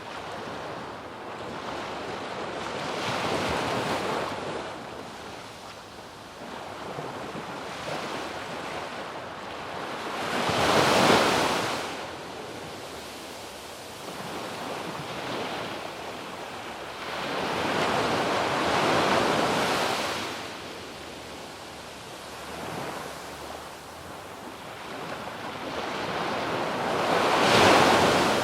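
Ocean waves breaking and washing up a sandy beach, the surf swelling and fading in slow surges every several seconds. The loudest surges come about a third of the way in and near the end.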